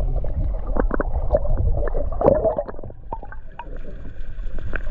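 Water sloshing and gurgling with scattered splashes over a low rumble as a large permit is put back in the water; the splashing dies down after about three seconds.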